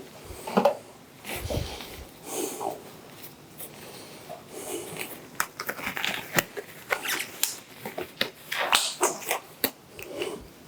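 Kitchen work sounds: a scatter of light clicks and taps with short rustles as utensils, containers and packaging are handled.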